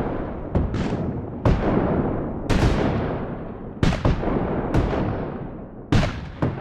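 Civil War-style battle sound effect: cannon shots fired in irregular succession, about eight blasts one after another, each with a long echoing tail that fades slowly.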